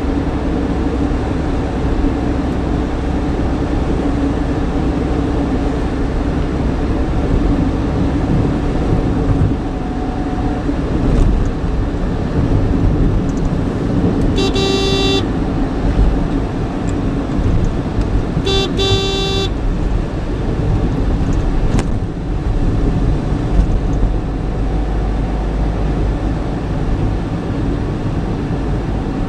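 Car engine and road noise heard from inside a moving car in traffic. A vehicle horn sounds twice, each blast about a second long, about halfway through and again some four seconds later.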